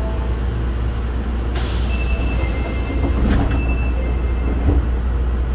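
Inside an Osaka Metro 22 series subway car: a steady low rumble, with a burst of compressed-air hiss lasting about two seconds, starting about one and a half seconds in. Two thin, steady high tones sound over and just after the hiss.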